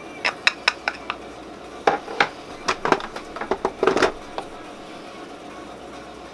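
Makeup containers and tools being handled, clicking and tapping: about twenty sharp clicks over the first four and a half seconds, several in quick clusters.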